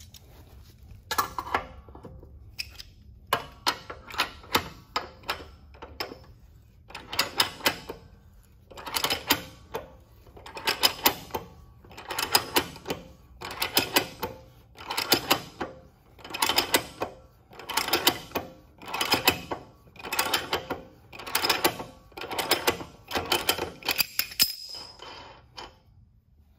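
Wera Joker 6004 self-setting wrench ratcheting on a caster-wheel axle nut: a metallic clicking clatter as the jaws slip back over the nut on each return stroke. It comes in short bursts, a few scattered ones at first, then a steady run a little faster than one a second until near the end.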